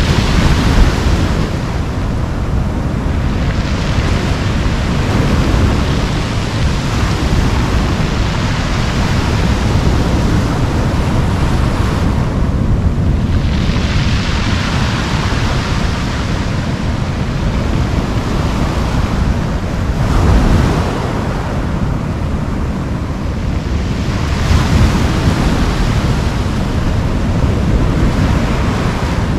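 Ocean surf breaking and washing up a cobble beach, swelling and ebbing every several seconds. Wind rumbles on the microphone underneath.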